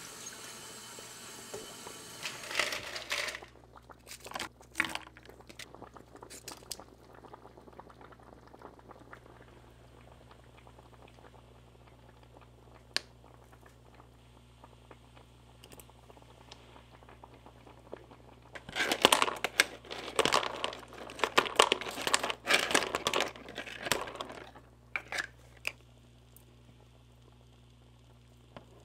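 Kitchen cooking sounds at the stove: liquid bubbling at first, then scattered light clicks and taps. A little past the middle comes about five seconds of loud crinkling and rustling handling noise.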